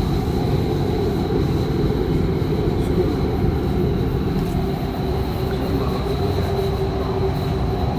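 Doha Metro train running between stations, heard from inside the carriage: a steady, loud rumble of wheels and running gear with a steady hum and a faint high whine over it.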